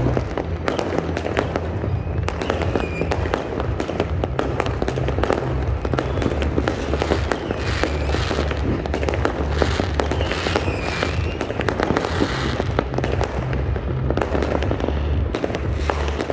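Dense, unbroken fireworks display: many shells bursting one after another in a rapid run of cracks and bangs, with a few short whistling glides.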